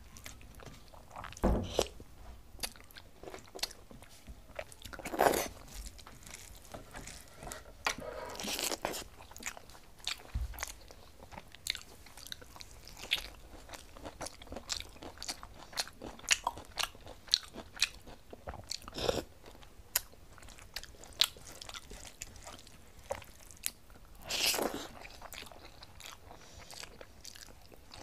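Close-miked eating by hand: chewing, with many short mouth clicks and smacks and a few longer squelching sounds, as fingers mix rice and curry on a steel plate and lift it to the mouth.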